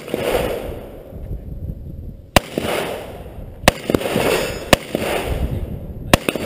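Rifle shots fired from behind a barricade at long-range targets: four slow, aimed shots a second or more apart, each followed by a long rolling echo across the range.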